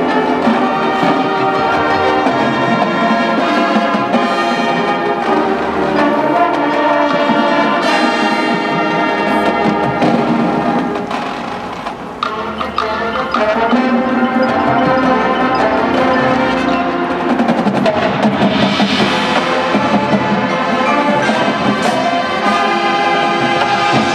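Marching band playing its field show, full brass over percussion. The music drops back briefly about halfway through, then returns at full strength.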